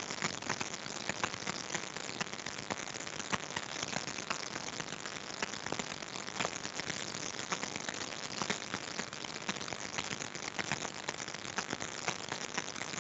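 Crackling static on the video-call audio: a steady hiss thick with sharp clicks and pops. The hosts take it for a fault with online platforms across the country that evening.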